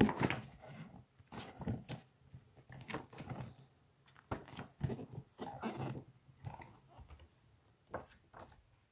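Pages of a large hardback book with glossy photo pages being leafed through and flattened by hand: a series of irregular paper swishes and rustles.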